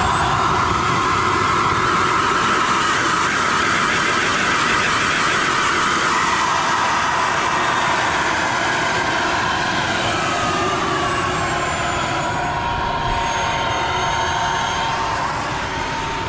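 Model jet's turbine engine running: a loud, steady rush with a high whine that slowly slides down in pitch over several seconds and eases off slightly near the end.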